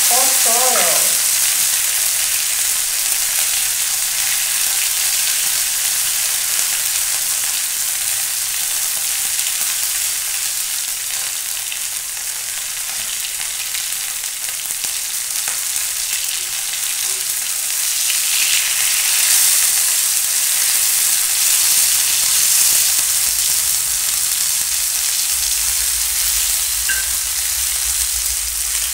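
Boiled potatoes browning in hot oil on a flat griddle: a steady sizzle, with the scrape of a metal utensil against the griddle as they are turned.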